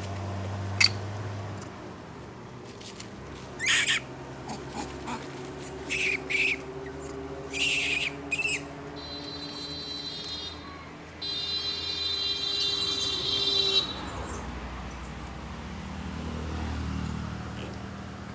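A run of short shrill calls, then a longer whistling call, over the low hum of an idling car engine that is strongest at the start and near the end.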